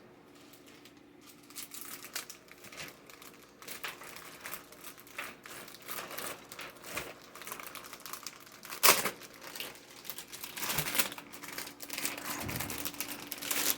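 Plastic packaging crinkling and rustling as it is handled and unwrapped, in irregular crackles, with a louder crackle about nine seconds in.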